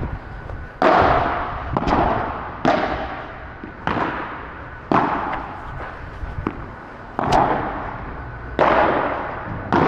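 Padel rally: the ball struck by rackets and bouncing, about eight sharp hits roughly a second apart, each echoing around the covered court.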